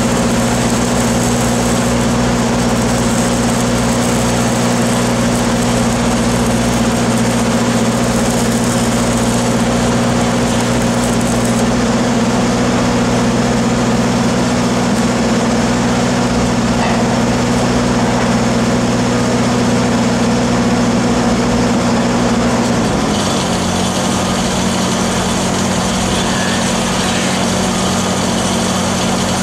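A nearby engine running steadily at constant speed, its pitch dropping to a lower, slower speed about three-quarters of the way through.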